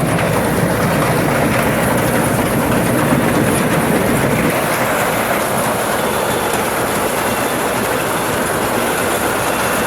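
Rice farm machinery running steadily and loudly, its low rumble easing about halfway through.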